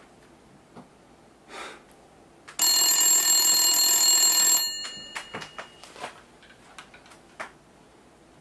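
A telephone bell rings once for about two seconds, then fades. A few light clicks and knocks follow as the handset is lifted to answer.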